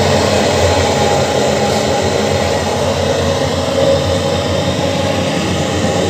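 Gas burner of a small crucible melting furnace burning at a steady, loud rush of flame.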